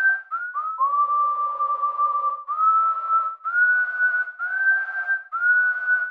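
Whistled tune: a string of about eight held notes, each sliding up slightly at its start, with breathy air noise around them. The longest note comes about a second in.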